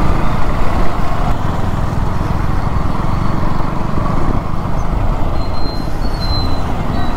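Steady rush of wind over the microphone on a moving motorcycle, mixed with engine and road noise.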